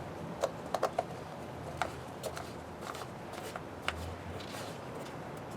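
Scattered light clicks and taps, a handful in the first three seconds, from the oil filler cap being screwed on and small parts handled under the hood, over a faint steady hiss.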